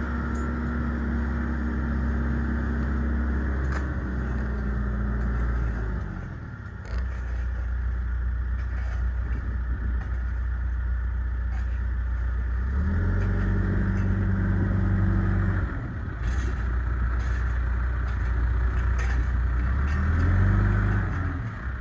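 Engine of earth-moving equipment running steadily, revving up and dropping back several times.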